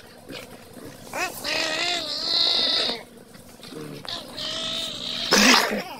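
Two dogs play-wrestling and vocalizing: long, wavering, high-pitched growl-whines, then a short, louder harsh burst near the end.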